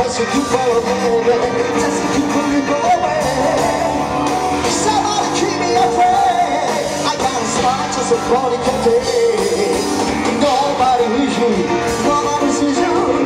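Live rock band playing, with a lead vocal over the band.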